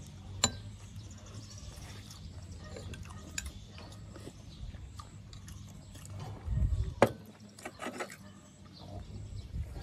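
Eating at a table with chopsticks: chopsticks clicking against plates and bowls, a few sharp clicks with the loudest about seven seconds in, between quieter chewing and mouth sounds, over a steady low hum.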